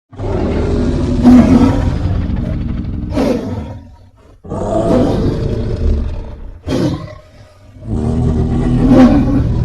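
Giant-monster roar sound effects: three long, rough roars, with a short sharp cry after each of the first two.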